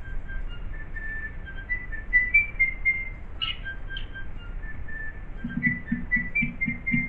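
A person whistling a wandering tune, one clear note at a time. Near the end a few soft low beats join in at an even pace.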